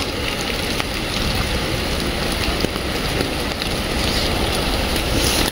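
Heavy rain falling steadily on a wet street.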